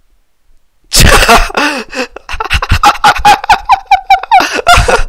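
A man breaking down in loud, helpless laughter, starting about a second in, in quick repeated pulses that go on to the end.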